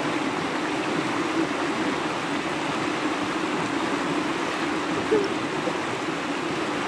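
Shallow, rocky river flowing over and around stones: a steady rush of running water.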